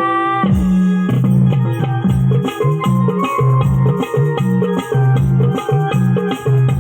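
Instrumental interlude of a devotional folk song: a keyboard plays over a stepping bass line, with a steady drum and shaker beat. A held sung note ends about half a second in.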